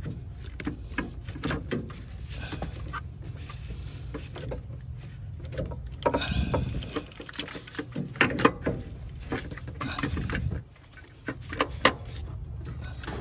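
Scattered metal clicks and knocks as an alternator is handled and worked into its mounting in the engine bay, over a steady low hum that drops out for a moment about ten seconds in.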